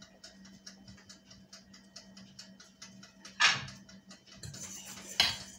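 Fast, steady ticking over a low hum, broken by a loud clank of a pot or pan on the stove about three and a half seconds in and another sharp one near the end.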